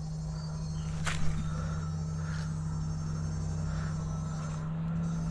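A steady low electrical hum runs throughout, with one sharp click or knock about a second in and a few faint short chirps.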